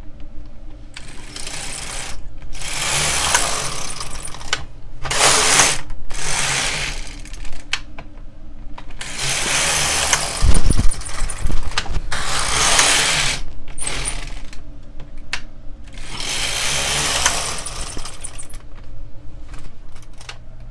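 Silver Reed LK150 knitting machine carriage being pushed back and forth across the needle bed, knitting row after row: a run of swishing, clattering passes, each a second or two long, with short pauses where the carriage turns. A low thump comes about ten seconds in.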